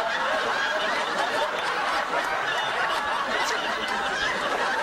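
Studio audience laughing steadily, many voices chuckling and tittering together.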